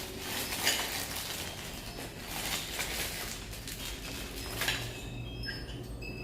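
Clinks and taps of spoons and plates during a meal: scattered light knocks, the loudest just under a second in and another a little before five seconds.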